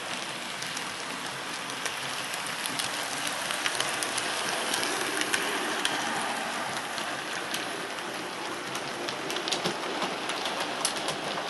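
Model railway locomotives running on track: a steady rushing whir from the motors and wheels, with frequent light irregular clicks from the wheels over the rail joints. The clicks are thickest near the end. The locomotives run smoothly.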